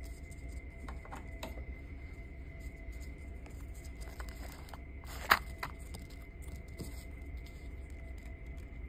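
Light scratching and tapping of a small pencil-shaped tool on cardboard, with one sharp click about five seconds in. A steady low hum and a faint high whine run underneath.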